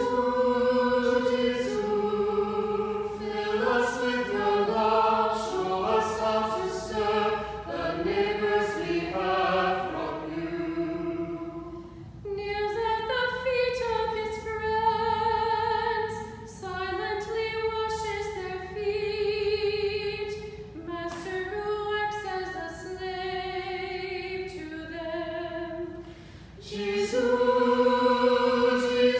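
A small mixed choir of men's and women's voices singing unaccompanied in several parts, in long sustained phrases with brief pauses for breath about twelve seconds in and near the end.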